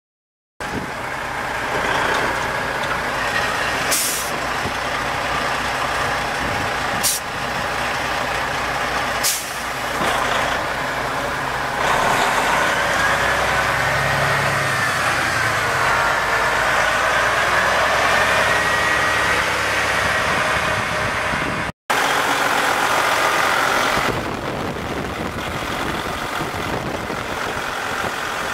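Detroit Diesel Series 60 12.7 L inline-six diesel of a Freightliner C120 semi tractor running steadily. Three short, sharp hisses come in the first ten seconds, and a faint whine that wavers in pitch runs through the middle.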